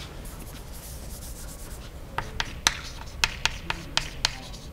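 Chalk writing on a blackboard. A soft scraping stroke comes first, then from about halfway a quick run of sharp taps as the chalk strikes the board, roughly three or four a second.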